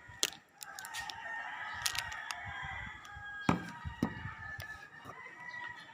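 Rooster crowing, with a few sharp clicks and knocks over it.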